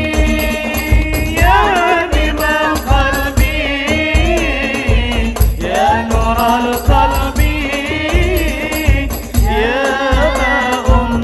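Sholawat devotional music: a steady drum beat with rattling percussion under a wavering, ornamented melody.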